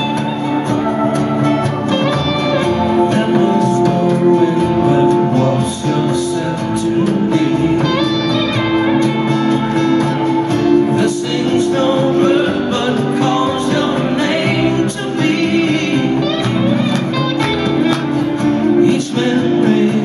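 Live band music: electric and acoustic guitars playing, with a voice singing.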